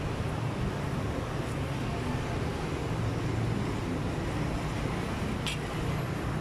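Steady low rumbling outdoor background noise, with one short sharp click about five and a half seconds in.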